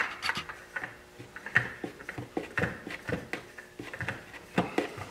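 A new oil filter being spun by hand onto a Polaris Sportsman 500 ATV engine: a run of irregular light clicks and scrapes as the canister is threaded on.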